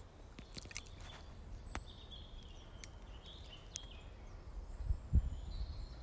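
Faint woodland birdsong: short, thin, high calls that come and go, with a few sharp clicks and a low thump about five seconds in.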